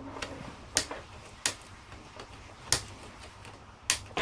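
Four sharp clicks and taps of small hard parts and hand tools, such as pliers, being handled on a work surface while a telephone's circuit board is stripped.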